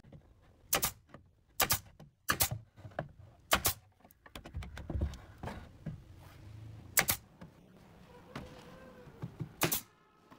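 Pneumatic nail gun firing nails into pine pallet boards: about seven sharp shots, unevenly spaced, with quieter knocks of wood handling between them.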